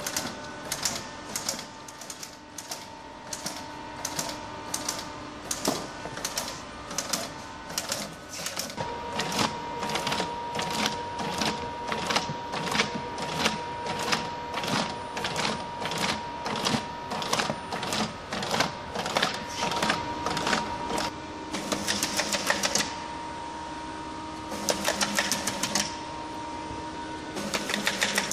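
Streamfeeder friction feeder dispensing booklets one at a time off a heavy stack, a sharp click about twice a second over a steady machine hum. Near the end it feeds in quick bunched runs of rapid clicks, three times, as it counts out batches.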